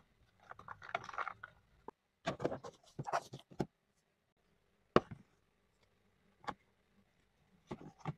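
Toy food and a plastic lunch box being handled: scattered scrapes, taps and clicks as pieces are set into the box and its clear plastic lid is put on and taken off, with one sharp click about five seconds in.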